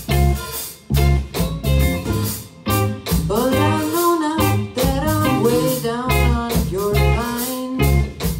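Live band with electric guitars, electric bass and drum kit playing a song, a lead singer's voice over a steady kick-drum and bass pulse.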